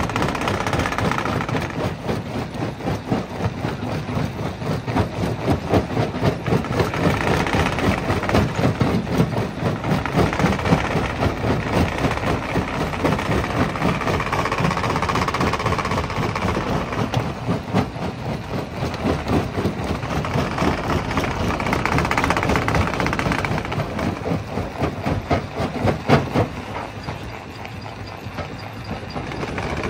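Rock crusher running under load, a steady machine drone with a dense, rapid clatter of knocks from rock being broken; the clatter eases a little near the end.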